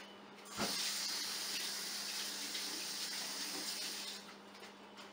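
Kitchen sink tap running as hands are rinsed under it. A knock about half a second in, then a steady hiss of running water that stops about four seconds in.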